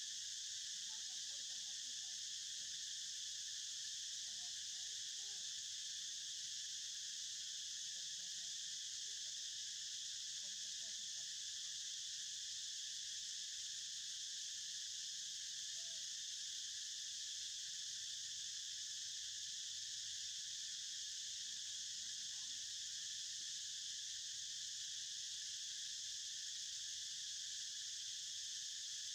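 Steady, high-pitched insect chorus that drones on without a break or change in level.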